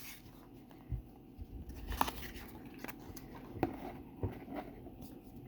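Faint handling sounds of a subscription box of trading cards being opened: a few soft knocks and clicks with light rustling of paper and packaging.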